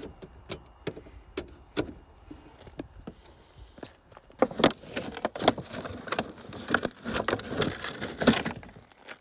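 Handling noise: scattered clicks and knocks, then about four seconds of denser, louder crunching and rustling as a plastic-wrapped pump hose and its cable are pulled about on gravel.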